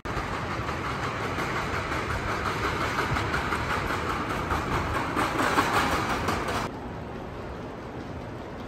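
Steady noise of a large railway-station hall, with trains in the background, that drops suddenly to a quieter hum about seven seconds in.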